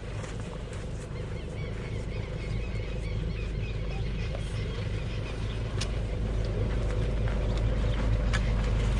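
A truck's engine rumbling at low speed, growing steadily louder as it approaches, with scattered clicks and a few faint bird chirps over it.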